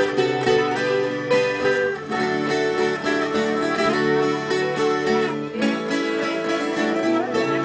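Viola caipira, its ten steel strings in doubled courses, plucked in a melody over a steel-string acoustic guitar playing the accompaniment. There is no singing.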